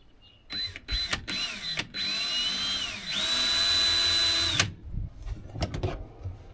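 Power drill driving a screw: a few short squeezes of the trigger, then a longer run whose speed rises and falls, and a steady run of about a second and a half that stops suddenly. A few light knocks follow.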